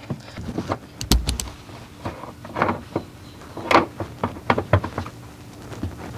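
Scattered metal clicks and knocks as loosened seat-mounting bolts are handled at the seat bracket and set down, with a sharp cluster of clicks about a second in.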